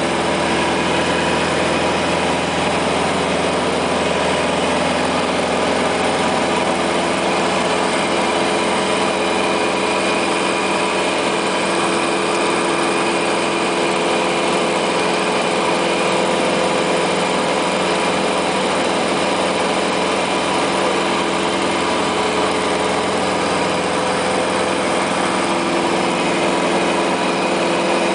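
Robin DR-400 light aircraft's piston engine and propeller running steadily in flight, heard inside the cockpit, with a constant engine tone over airflow noise.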